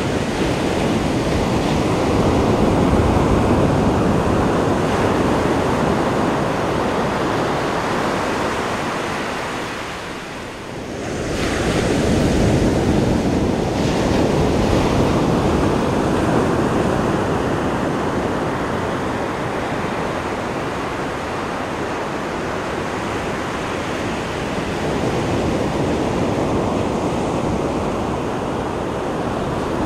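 Ocean surf washing in steadily, with a brief lull about a third of the way through before the rush of the waves builds again.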